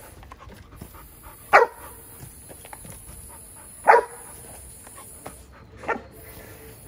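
Giant Schnauzer puppy barking: three single barks about two seconds apart, the last one quieter.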